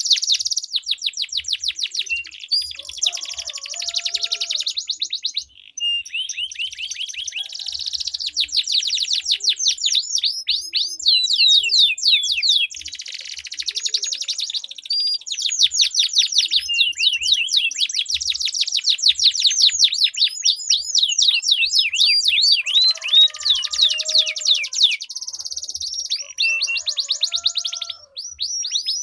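Domestic canaries singing against each other in long, rapid rolling trills of repeated high notes, with short breaks between phrases.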